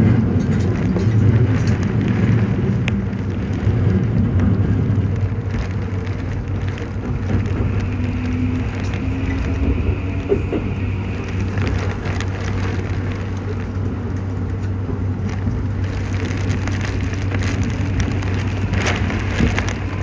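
A Toei 5500 series electric train running at speed, heard from inside the car as a steady low rumble. Heavy rain crackles against the train as a patter of sharp ticks, which thickens near the end.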